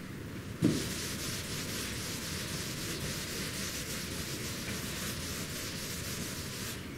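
Board eraser wiped across a chalkboard in repeated strokes. It is a steady scrubbing that starts with a light knock about half a second in and stops near the end.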